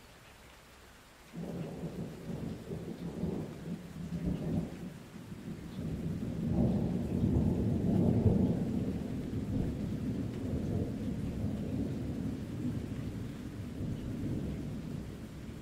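Deep rolling thunder over steady rain. The thunder breaks in suddenly about a second in, swells to its loudest around the middle, then keeps rumbling without dying away.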